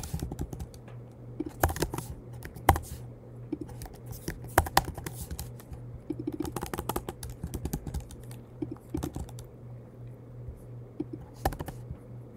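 Typing on a computer keyboard: irregular runs of key clicks with a few harder keystrokes, over a steady low hum.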